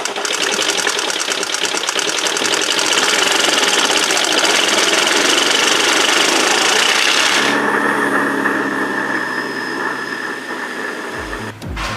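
Rebuilt Porsche Cayenne engine running after its overhaul, a loud fast-pulsing sound that changes about seven and a half seconds in to a steadier, quieter run with a held tone.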